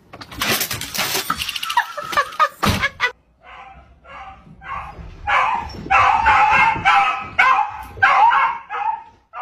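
A dog barking over and over, about two to three barks a second, louder from about five seconds in. Before that, a few seconds of clattering, rattling noise.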